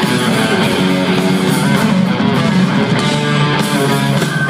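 Live rock band playing an instrumental passage between vocal lines, with electric guitars loudest over bass and drums.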